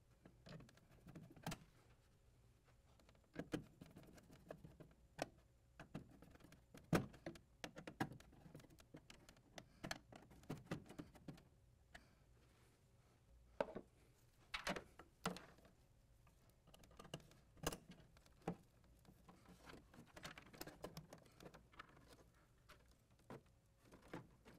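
Faint, scattered clicks and taps of hand work with a Phillips screwdriver and small parts and cables, while an EMV card reader is fitted inside an ATM.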